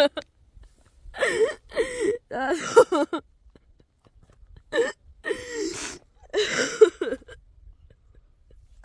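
A woman's voice in short, high-pitched, breathy bursts, crying out and sobbing with gasps between. There are about six bursts, with pauses of a second or more between some of them.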